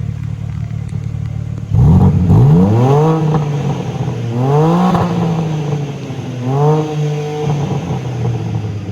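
2024 BMW M4 Competition's 3.0-litre twin-turbo straight-six idling, then revved three times, each rev rising in pitch and falling back to idle, the last one the shortest.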